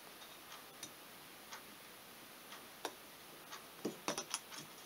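Faint light metallic clicks of a thin steel piston ring being spread with the fingers and worked into the groove of a two-stroke piston, with a quick cluster of louder ticks near the end as the ring slips into place.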